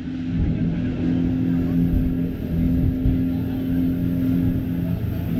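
Speedboat's outboard engine running steadily under way, with a heavy, uneven rush of wind and water.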